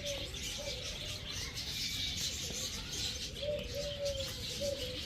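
Pigeons or doves cooing: a run of short, low, arched coos about three and a half seconds in, with other birds chirping in the background.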